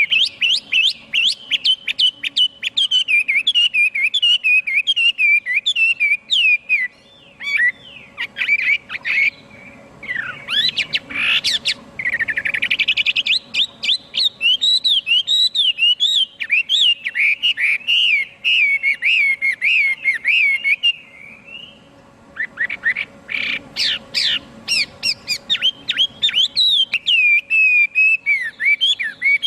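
Chinese hwamei singing: long runs of rapid, loud whistled notes that sweep up and down, mixed with varied phrases, with a short pause about two-thirds of the way through before the song picks up again.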